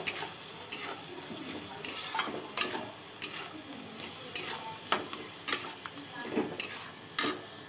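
Metal spatula scraping and stirring a paste of grated onion, tomato and ginger-garlic in a metal kadai, in irregular strokes about one or two a second, over a steady sizzle of the paste frying in oil.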